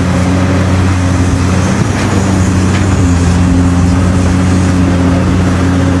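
Caterpillar excavator's diesel engine running steadily with a deep, even hum while it loads soil into a dump truck.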